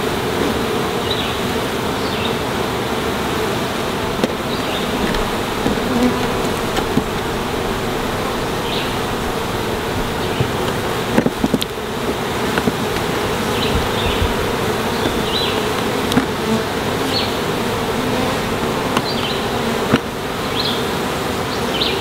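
Honeybees buzzing in large numbers around a frame lifted from an opened hive: a dense, steady drone. A few short sharp clicks sound about halfway through.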